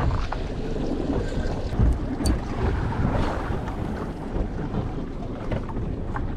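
Wind buffeting the microphone on a fishing boat at sea: a steady rough rumble, with a few light knocks.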